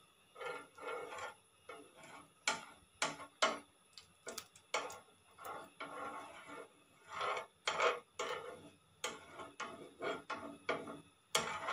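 Metal spoon scraping and tapping on a hot dosa griddle as ghee is spread over it, in irregular short strokes with a few sharp clicks.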